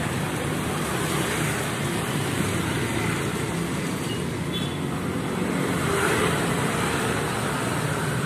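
Steady road traffic noise, swelling slightly about six seconds in.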